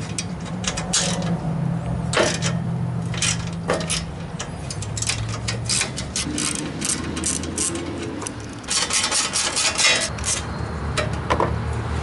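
Hand ratchet with a 10 mm socket clicking in short runs as small bolts are backed out, with a dense flurry of clicks about nine seconds in. A steady low hum runs underneath.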